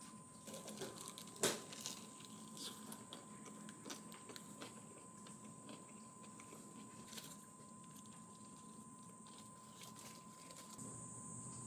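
Quiet close-up eating sounds: a person biting and chewing a soft white-bread sandwich, with small clicks and rustles from its plastic wrapper and one sharper click about one and a half seconds in. A faint steady tone runs underneath.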